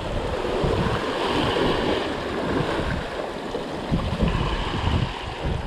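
Sea surf washing over rocky shore ledges, swelling about a second in, with wind gusting on the microphone.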